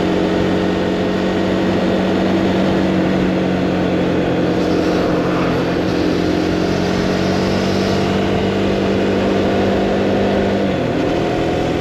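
Motorcycle engine running at a steady cruising speed, with wind rushing past the rider's microphone; the engine note dips near the end as the bike eases off.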